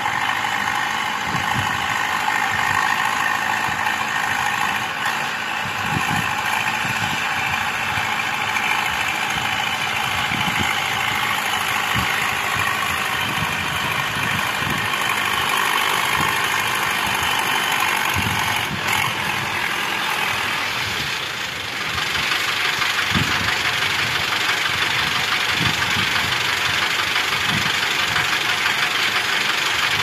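Universal 640 DTC tractor's four-cylinder diesel engine running steadily while ploughing, with scattered low thumps; it grows louder about two-thirds of the way through as the tractor comes close.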